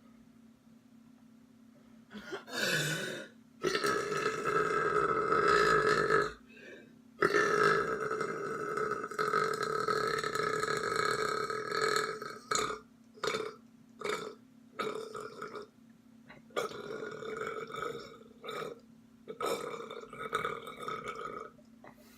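A person belching loudly: a short burp, then two long drawn-out belches of about two and a half and five seconds, then a quick run of five short burps and two more longer ones.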